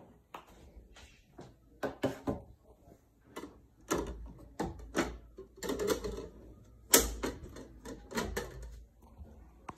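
Plantation shutter louvers being pushed and tilted shut by hand: an irregular run of clacks and knocks, the loudest about seven seconds in.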